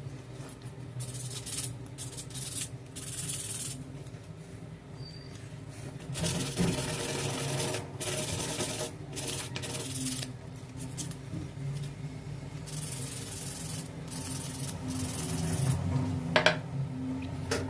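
Hand sanding a wooden spoon: sandpaper rubbing on wood in repeated strokes of uneven length, with a short knock near the end.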